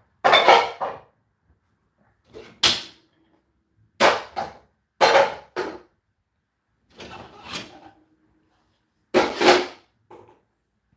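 Dishes and the dishwasher's racks being handled: about six short knocks and scrapes, spaced a second or two apart.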